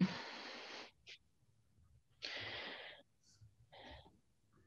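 A person breathing audibly, three soft breaths of under a second each, while shifting position on a yoga mat.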